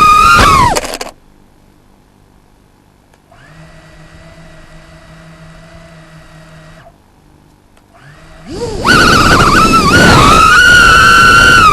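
Small 2-inch FPV drone's motors whining loudly, the pitch dropping away within the first second as the throttle comes off. A faint steady hum follows, then the whine rises again at about eight and a half seconds and stays loud.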